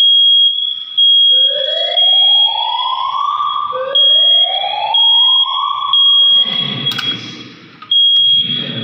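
Fire alarm system going off during a test, set off after a detector or manual call point is activated. A high steady beep pulses about once a second over a lower whoop tone that sweeps upward twice. A rougher, lower noise joins in near the end.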